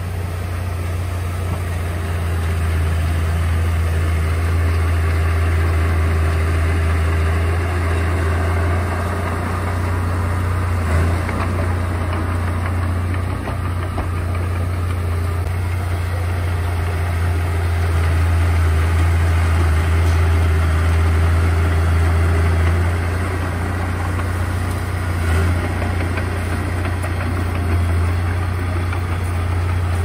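Komatsu D31A bulldozer's diesel engine running with a steady low drone, its level rising and falling slightly.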